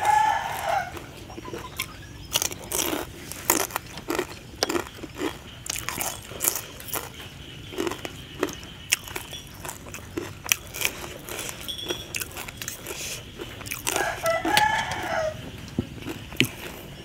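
Close-up eating sounds: chewing and crunching of rice noodles and crisp raw vegetables, with clicks of a spoon and fork. A rooster crows right at the start and again about 14 seconds in.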